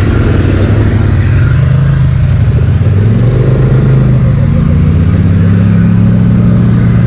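Polaris Sportsman 850 XP ATV engine running under throttle as the quad pulls away, its pitch stepping up about three seconds in and again about five seconds in as it gathers speed.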